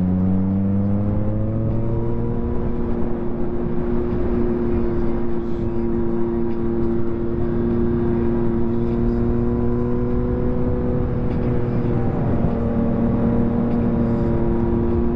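2023 Yamaha MT-09 SP's three-cylinder engine through a full Akrapovic race exhaust, revs climbing over the first two seconds, then held nearly steady with a brief dip and pick-up near the end, over a steady rush of wind and road noise.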